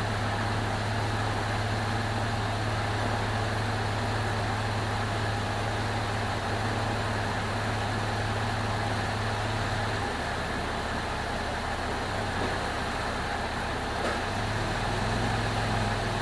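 Chrysler 3.7-litre V6 in a Jeep Liberty idling steadily, running smooth just after an engine swap; its low note eases briefly about ten seconds in.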